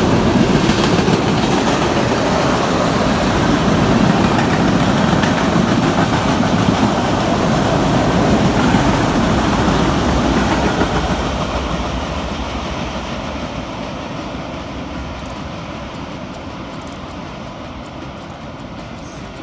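Freight train of tank cars rolling past, with a steady noise of wheels on rail. From about eleven seconds in it fades steadily as the last car passes and the train moves away.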